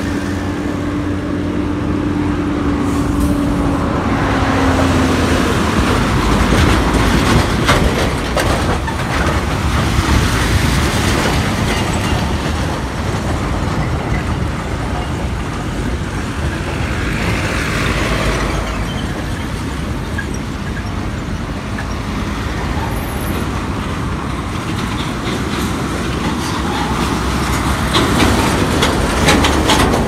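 Road traffic passing close by on a rough, partly unpaved road: trucks, cars, minibuses and a motorcycle drive past, engines running and tyres rolling, the noise swelling as each vehicle goes by. A steady drone fades out in the first few seconds.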